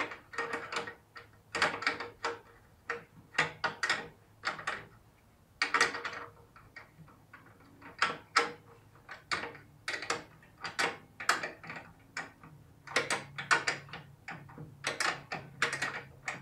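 Irregular clunks, knocks and scrapes of hand work on metal and plastic parts, one to three a second with short pauses, over a faint low hum.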